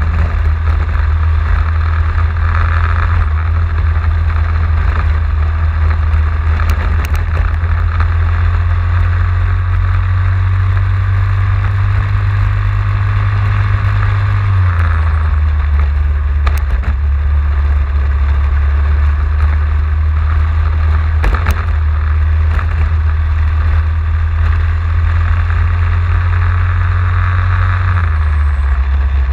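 Racing kart engine running hard on track, its note climbing slowly and then dropping sharply twice, about halfway through and again near the end.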